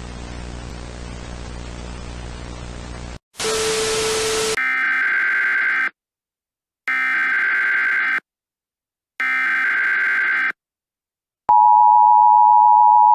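Static-like hiss over a steady hum, then three short blasts of screechy Emergency Alert System SAME header data tones about a second apart. Near the end comes the loud, steady EAS two-tone attention signal, which announces the broadcast warning.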